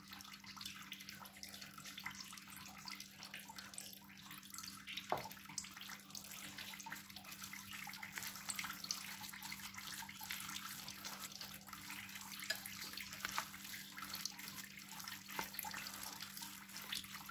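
Orange plastic spatula stirring a wet mashed-tofu batter in a glass bowl: faint, continual soft wet scraping with small clicks and one sharper click about five seconds in, over a steady low hum.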